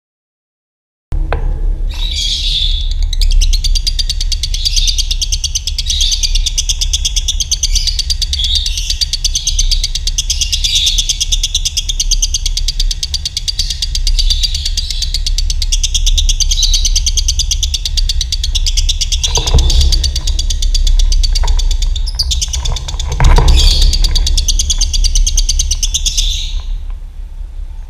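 Two lovebirds singing together in a long, unbroken, rapid chattering trill (the 'ngekek' song), starting about a second in and fading near the end. A steady low rumble runs underneath, with two brief knocks about two-thirds of the way through.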